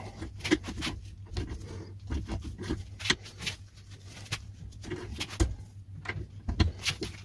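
Irregular metal clicks and scrapes of a padlock being forced with a cylinder-twisting tool worked back and forth, the lock holding against it.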